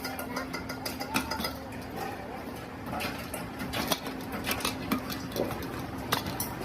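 Metal pressure cooker parts clinking and clattering as they are handled, in irregular sharp knocks, over a steady low hum.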